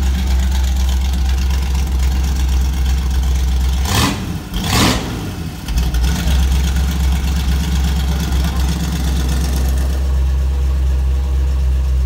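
Hot rod engine idling loud and deep through a dual exhaust with newly installed electric cutouts, blipped twice in quick succession about four seconds in before settling back to idle.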